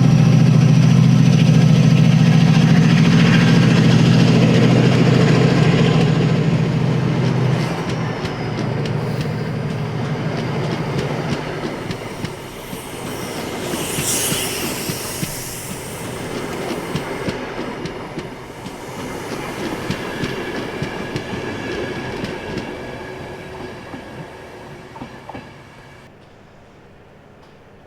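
Class 68 diesel locomotive's engine running with a loud, steady low drone that fades as the train draws away, followed by the Mk3 coaches clattering over rail joints with a brief high wheel squeal about halfway through. The sound dies away near the end.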